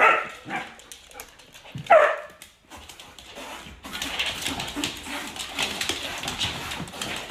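A dog giving two short, loud yelping calls, one right at the start and one about two seconds in, followed by a steady noisy hiss.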